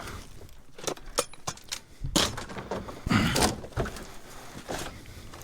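Rummaging through junk in a dumpster: scattered clicks, knocks and rattles of objects being shifted, with louder clattering about two and three seconds in.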